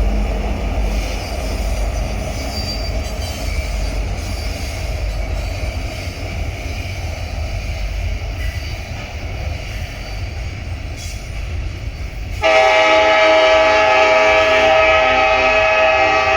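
Diesel locomotive with a V16 engine running past with a steady low rumble; about twelve seconds in its multi-chime air horn sounds suddenly, a loud chord of several notes held to the end.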